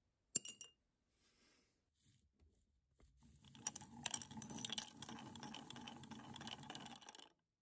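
A glass jar holding a soaking metal Yale padlock in cleaning solution is being swirled, and the lock clinks and rattles against the glass. A single sharp clink comes about half a second in, and the rattling starts about three seconds in and stops just before the end.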